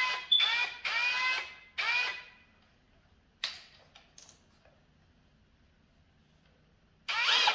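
Cordless drill fitted with a Malco Turbo Shear head, run free in short trigger pulls: the motor whines up and winds down four times, a sharp click comes about three and a half seconds in with a few smaller clicks after, and the drill starts whining again near the end.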